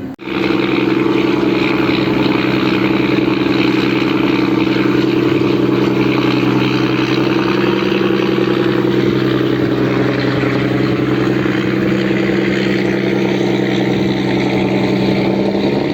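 Tugboat engine running steadily under load: a loud, even drone with a low hum of several steady tones.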